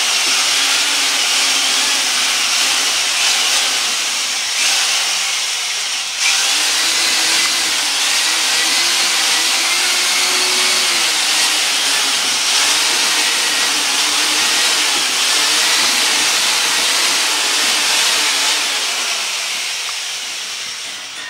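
Handheld electric drill with a paddle mixer churning a slurry of household organic waste and water in a plastic bucket: a steady motor whir over the loud hiss of the churning mix, with the motor's pitch wavering. It slackens briefly about five seconds in and winds down near the end.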